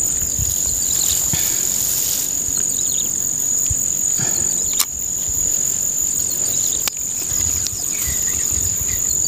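Insects, crickets or cicadas, keeping up a steady, shrill high-pitched drone, with two sharp clicks about five and seven seconds in.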